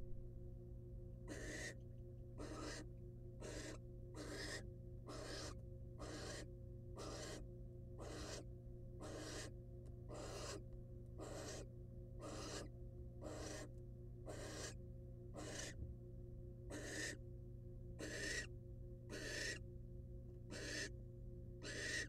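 Barn owl giving a long series of rasping, hissing snore calls, about one every two-thirds of a second.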